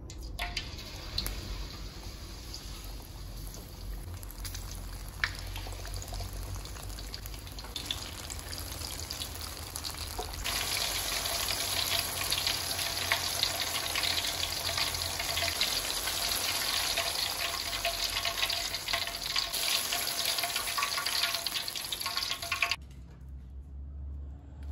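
Battered banana fritters deep-frying in hot oil in a steel wok, a steady sizzle that grows much louder and denser about ten seconds in and cuts off abruptly near the end. The fritters are in their first fry, cooked until the batter surface sets.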